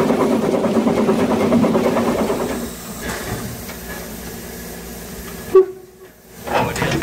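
Narrow-gauge steam locomotive 99 7245 running at speed, heard close beside its running gear: a steady loud rattle and clatter with steam hiss. About three seconds in it gives way to a quieter steam hiss from the locomotive setting off, with one sharp bang a little past five seconds and a louder puff of exhaust near the end.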